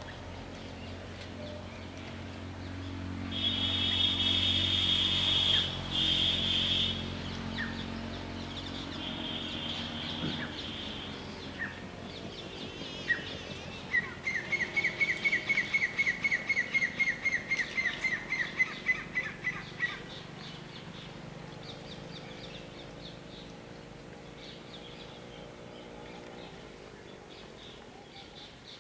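Bird calls. A high, steady trilling call lasts a few seconds near the start, and a rapid series of repeated notes, about four a second, runs for some six seconds in the middle, over faint outdoor background.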